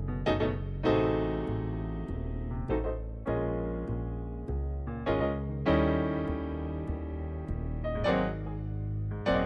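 Background music led by electric piano, with chords struck about once a second.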